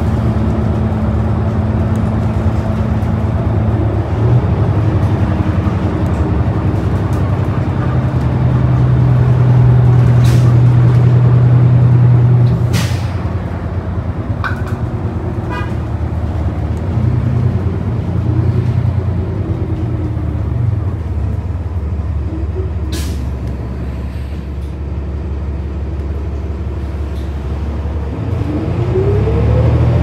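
Inside the cabin of a New Flyer Xcelsior XD40 diesel bus with a Cummins L9 engine and Allison B400R transmission: a steady low engine drone that grows louder for a few seconds, then eases off. A few sharp rattles come from the cabin, and near the end a rising whine starts as the bus picks up speed.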